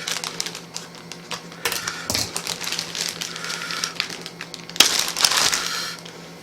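Scattered light clicks and taps of kitchen utensils and containers being handled, with a brief rustle about five seconds in.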